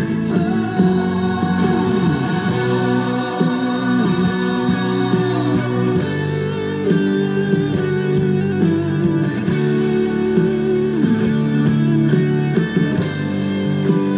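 Music led by guitar, with held notes that slide between pitches.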